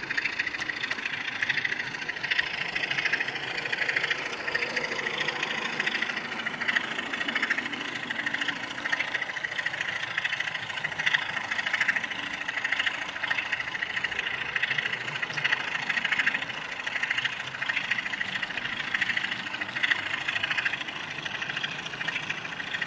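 00 gauge model train running along the track, heard close up from the onboard track camera: a steady running noise of wheels and drive with an even pulsing.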